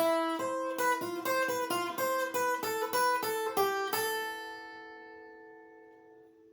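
Viola caipira played solo: a quick run of plucked single notes, then a last chord about four seconds in that rings on and slowly fades away, closing the tune.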